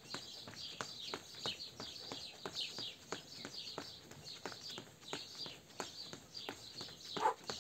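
Quick, steady patter of running shoes striking stone paving during fast alternating knee drives. Birds chirp in the background.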